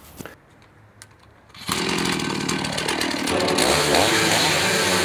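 Gas chainsaw comes in loud about a second and a half in and runs at high revs, its pitch dipping and rising as it bites into a large silver maple log.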